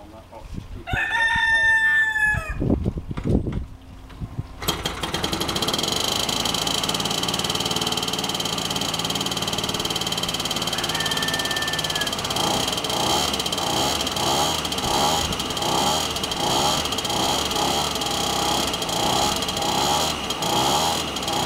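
A rooster crows about a second in, followed by a few low thumps. About five seconds in, the engine of a one-third-scale Tiger Moth model biplane starts and runs steadily on the bench, turning its propeller.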